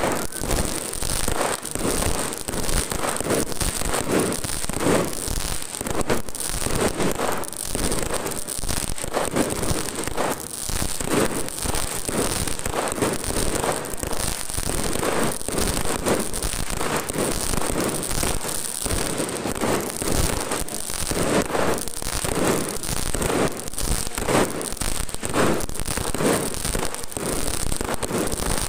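A continuous barrage of firecrackers, many sharp pops and crackles in quick succession.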